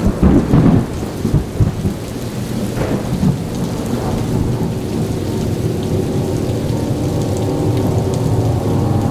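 Heavy rain falling with thunder rumbling, and a run of loud thuds in the first two seconds. A low steady hum builds under the rain toward the end.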